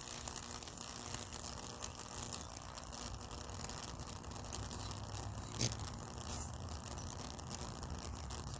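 Microwave-oven-transformer fractal wood burner running: a steady electrical hum under a continuous crackling sizzle as high voltage arcs and burns through the wet wood, with one sharper pop about five and a half seconds in.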